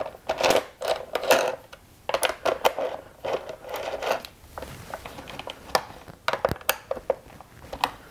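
The plastic top cover of a STIHL MS291 chainsaw being handled and fitted back onto the saw, making irregular clicks, knocks and rattles. The handling sounds are dense in the first half and give way to sparser, sharp single clicks.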